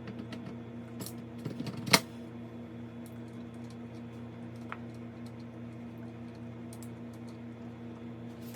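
A few light clicks and knocks as the operating handle is fitted onto a Dillon RL 550C reloading press, ending in one sharp clack just before two seconds in, with one faint click later. A steady low hum sits underneath.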